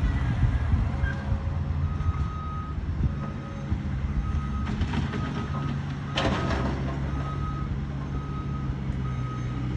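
Heavy equipment's diesel engine running steadily while its backup alarm beeps repeatedly, starting about two seconds in. There is a short clatter about six seconds in.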